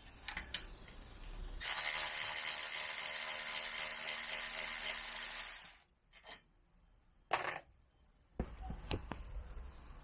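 Cordless electric ratchet running steadily for about four seconds as it spins out the lower rear shock absorber bolt of a BMW R1200GS. A short, sharp sound follows a couple of seconds later, then a few light clicks.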